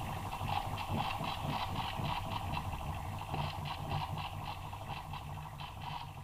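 Microwave-oven turntable motor and its small reduction gearbox turning a DIY rotating platter: a steady low hum with a fast, uneven ticking from the gears.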